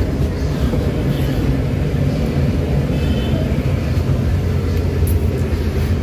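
Suzuki DA17's three-cylinder engine running with a steady, rough idle: the engine is still shaking after a new control board was fitted, a fault that shows no code.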